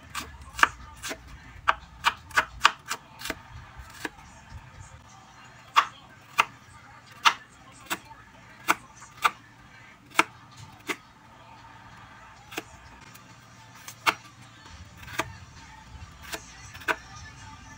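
Kitchen knife striking a wooden cutting board while slicing vegetables: a run of sharp knocks at an uneven pace, quick over the first few seconds, then sparser, with a pause of about three seconds past the middle.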